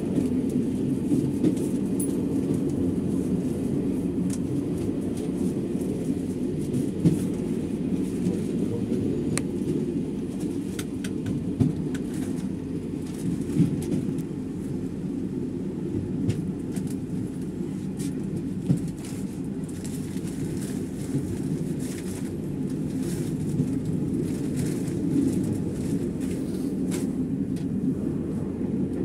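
Moving train running along the track, a steady low rumble with occasional sharp clicks from the wheels on the rails.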